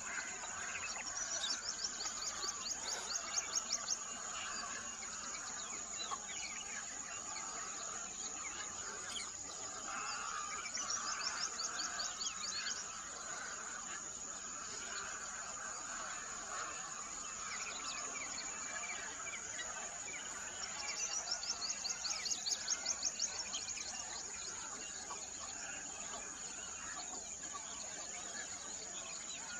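Birdsong: a bird sings a rapid high trill of about two seconds three times, over a steady high insect drone and a background of other birds' chirping.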